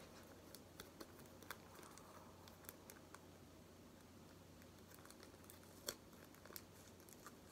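Near silence with faint crinkles and scattered small clicks of a clear plastic sleeve being handled, one slightly louder tick about six seconds in.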